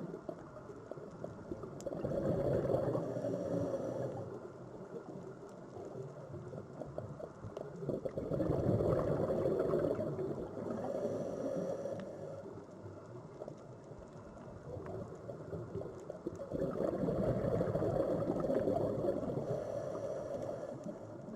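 Sea waves washing ashore and drawing back, rising and fading in three slow swells several seconds apart.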